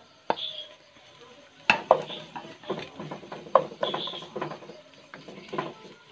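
Wooden spatula stirring sliced onions and ginger-garlic paste in a non-stick frying pan: one knock shortly in, then irregular scrapes and knocks against the pan from about a second and a half in.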